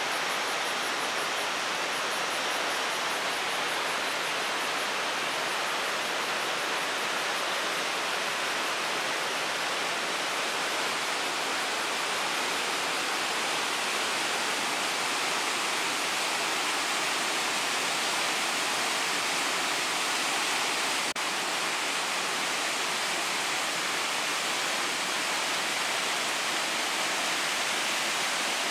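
Mountain stream rushing over rocks, a steady, unbroken rush of water.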